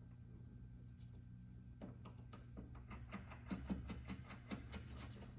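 Faint clicks and light rattling from a truck wiring harness being handled and pushed into place, with most of the clicks in the second half, over a low steady hum.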